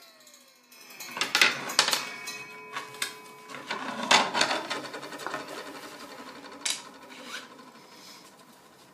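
A SawStop table saw's blade coasting to a stop after a cut, a falling whine that dies out within the first second. Then plastic segment plates are slid and set down on the metal saw table, with rubbing, scraping and knocks of small wooden segments, loudest about a second and a half in and again around four seconds.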